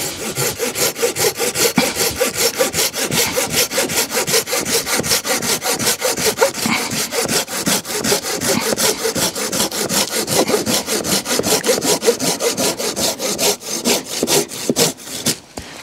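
Silky Gomboy folding handsaw cutting through a dead standing maple pole about 2.5 inches thick, in quick, even strokes at about four a second. The sawing stops near the end.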